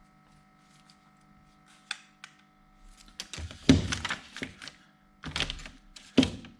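A series of dull thuds and knocks, loudest a little after three seconds in and again near the end, over a faint steady hum.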